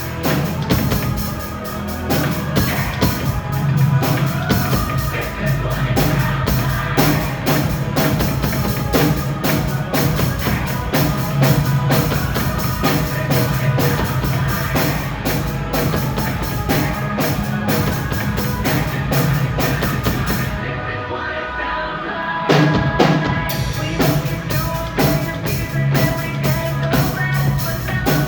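Pop-rock music with a drum kit keeping a driving beat over a steady bass line. About 21 seconds in, the cymbals and bass drop out for a couple of seconds, then the full band comes back in.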